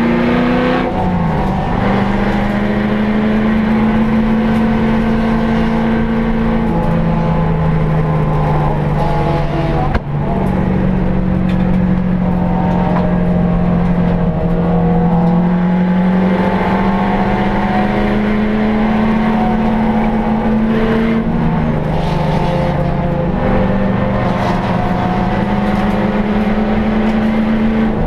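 HSV Clubsport V8 engine at racing load, heard from inside the cabin. Its note climbs slowly and steps down in pitch at gear changes about a second in and again around twenty-one seconds in. A short sharp knock comes about ten seconds in.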